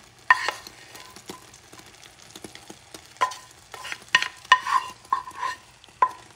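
Wooden spatula knocking and scraping diced ham, peppers and onions out of a small metal pan onto a cooking omelette. Irregular sharp knocks, each with a brief ring from the pan, come faster in the second half, over a faint sizzle of egg in the skillet.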